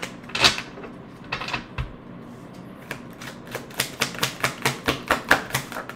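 A tarot deck being handled and shuffled by hand: cards clicking and snapping against each other, a few scattered clicks at first, then a quick run of about four to five clicks a second in the second half.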